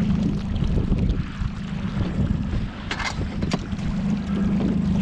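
Yamaha 40 outboard motor running steadily at trolling speed as a low hum, with wind rumbling on the microphone. There are two short sharp knocks about three seconds in.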